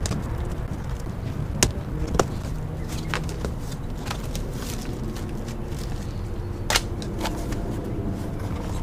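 Cardboard box being opened by hand: flaps pulled back and packaging handled, with scattered crisp snaps and crackles, three sharper ones about one and a half, two, and nearly seven seconds in, over a steady low background rumble.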